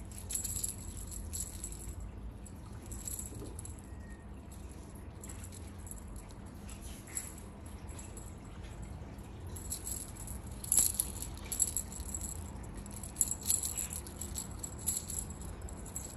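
Small metal jingle bells on a feather wand cat toy jingling in irregular short bursts as the toy is shaken, loudest about eleven seconds in.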